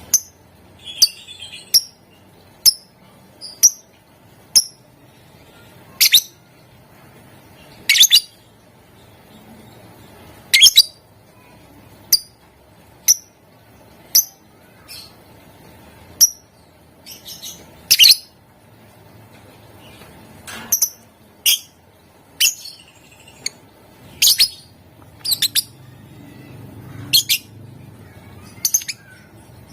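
Lovebird calling in short, sharp, high-pitched chirps, one at a time and irregularly spaced, about one a second, with a few longer chattering calls among them.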